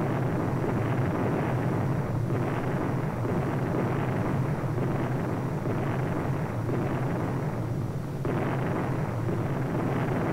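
Continuous rumble of a long string of bomb explosions running together, a Convair B-36's bomb train going off across the range, with new surges of blast about two seconds in and again near eight seconds. The sound is dull with little treble, as on an old film soundtrack.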